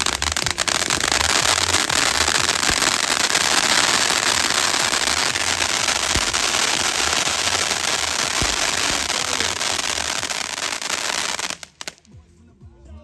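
Firework barrage: a dense, continuous crackling with scattered sharp bangs, cutting off abruptly near the end.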